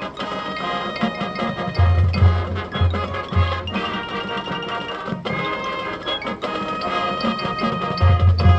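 High school marching band playing its competition show: held band notes with short struck accents, and groups of deep drum hits about two seconds in and again near the end.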